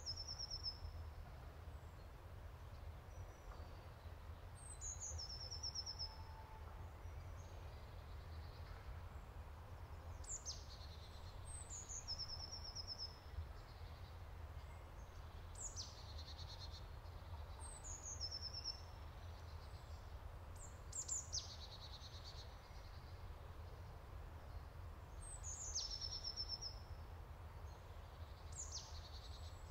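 A small songbird singing short, high phrases that sweep down and end in a quick trill, repeated every few seconds, over a steady low rumble.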